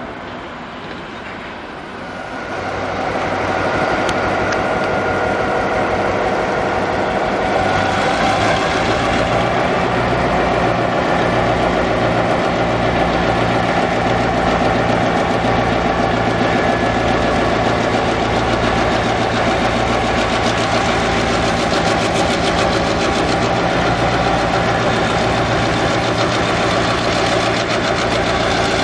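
Diesel road-switcher locomotive's engine running as it moves slowly through a rail yard. The sound grows louder over the first few seconds as the locomotive comes into view, then holds steady with a low, regular throb underneath.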